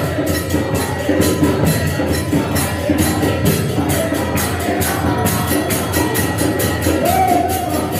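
Devotional kirtan during arati: voices chanting together over small hand cymbals (kartals) struck in a steady, fast rhythm of about four strikes a second.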